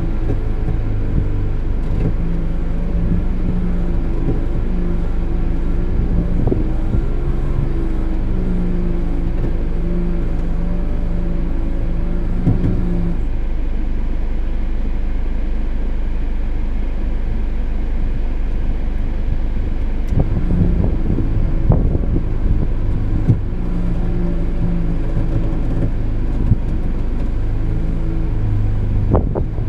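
A vehicle's engine running steadily, heard from inside the cabin as a low rumble. A low hum rises over it in short on-and-off spells for the first dozen seconds and again from about twenty seconds in.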